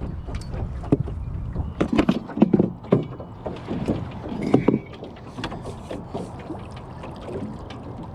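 Irregular knocks, bumps and clatter in a small aluminum jon boat, as hull, gear and rod holders are bumped while a hooked bass is played beside the boat. The knocks come thickest between about two and five seconds in, over a steady low rumble.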